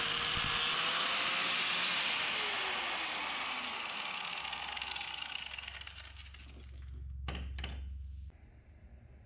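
A power cutting tool grinding through a steel bolt to shorten it, a steady high grinding hiss, then winding down with a falling whine once released. A low hum and a few knocks follow.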